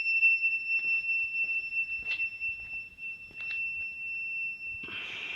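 Active buzzer driven by an RCWL-9196 microwave radar motion sensor sounding one continuous steady high-pitched tone, triggered because the sensor has detected movement. A few faint clicks and, about five seconds in, a rustling noise sound alongside it.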